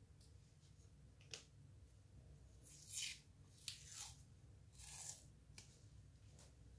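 Near silence broken by about six short, faint rustles and scrapes of hands handling small objects, the loudest about three seconds in.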